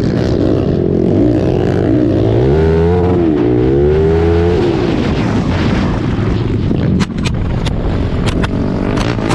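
Racing quad's engine revving up and down, its pitch rising and falling with the throttle, then giving way to a noisy rush. About seven seconds in comes a series of sharp knocks and thuds as the quad grabs in the dirt and tumbles over with the rider rolling.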